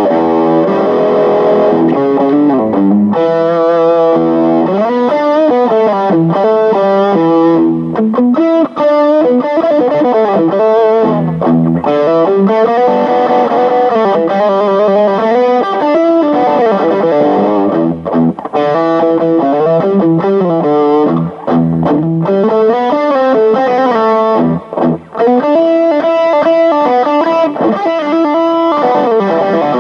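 Yamaha Studio Lord SL-500 electric guitar being played: continuous melodic lines and held notes, with a few brief gaps between phrases.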